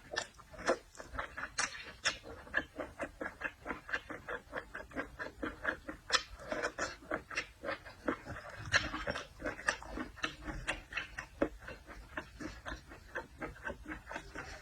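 Close-miked chewing of seafood with wet lip-smacking, a quick run of moist mouth clicks and smacks at about three to four a second.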